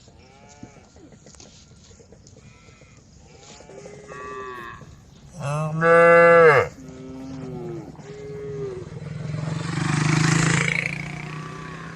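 Several cows mooing back and forth, fainter distant moos answered by one close, loud moo about halfway through. A rushing noise swells and fades near the end.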